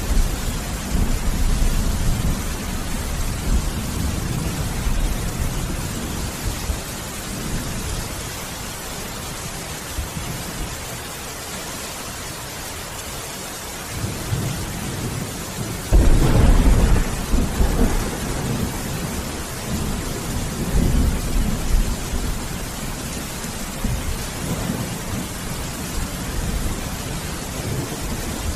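Thunderstorm: steady heavy rain with rolling thunder that dies away over the first several seconds, then a sudden loud thunderclap a little past halfway that rumbles on and fades.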